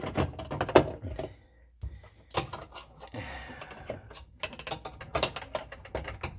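Plastic dishwasher float and filter parts clicking and knocking as they are handled and fitted back together, in a string of irregular clicks.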